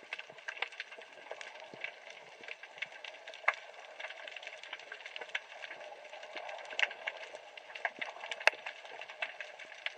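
Underwater reef noise heard through a camera housing: a steady hiss full of irregular crackling clicks and snaps, a few sharper ones standing out.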